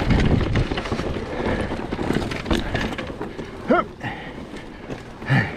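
Mountain bike riding down a rough dirt trail: steady tyre noise and rattling knocks from the bike over bumps, with wind on the microphone. Two brief vocal sounds come in, one past the middle and one near the end.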